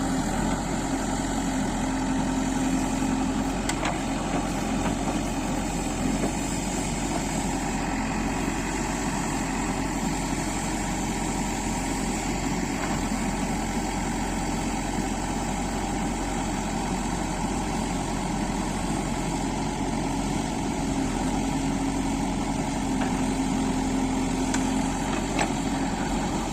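Backhoe loader's diesel engine running steadily at low speed, its note swelling a little twice.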